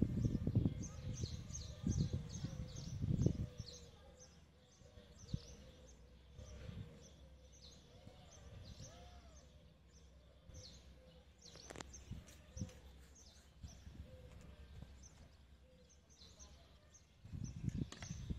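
Small birds chirping repeatedly, with gusts of wind buffeting the microphone as low rumbles in the first few seconds and again near the end.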